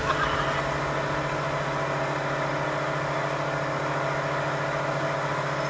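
A motorboat's engine running steadily at speed, a constant hum, over the rushing noise of its churning wake.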